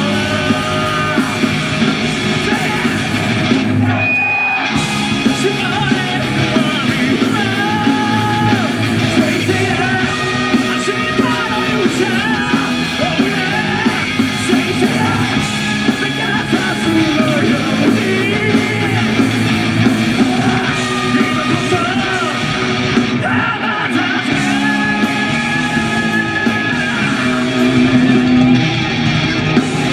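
Heavy metal band playing live: distorted electric guitars, bass and drums under a male vocalist singing and shouting into a microphone, with a brief break in the low end about four seconds in.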